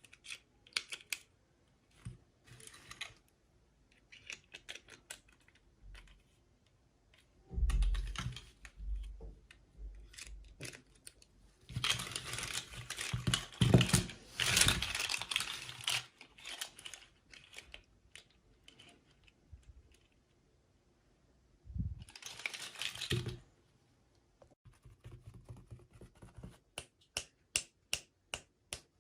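Unboxing of small plastic toys: scattered light clicks and taps of plastic pieces being handled, broken by several louder spells of rustling, crinkling packaging, the longest and loudest in the middle.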